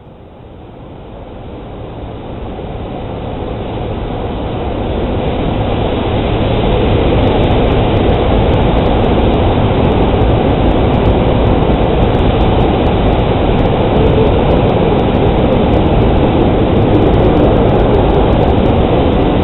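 Dense, steady noise with a deep rumble that fades in over about six seconds and then holds loud.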